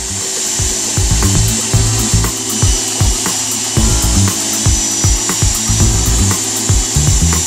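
Hot-air plastic welder blowing with a steady hiss and a faint thin whine, while a hand roller presses along the seam of PVC mesh. This gives irregular rubbing thumps and scrapes, two or three a second, as the hot-air weld is made.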